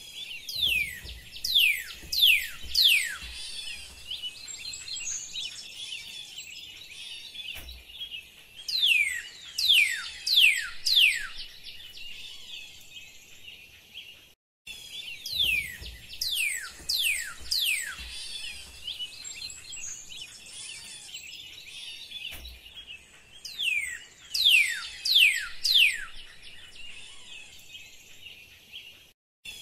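Jungle ambience of birds calling: groups of quick whistles sweeping downward in pitch over a dense chorus of chirps. It is rendered binaurally with HRTFs to circle the listener's head, played twice with a short break about halfway. The first pass steps around in four directions and the second in eight.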